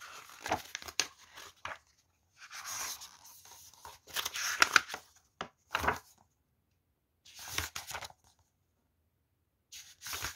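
Thin translucent sheets and a book being handled on a cloth-covered surface: crinkly rustling and light knocks that come in five or six short bursts with brief silences between them.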